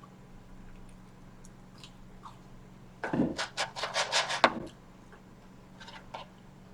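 A quick run of scraping, rustling strokes, about six a second, lasting over a second from about three seconds in, with a few fainter ones before and after.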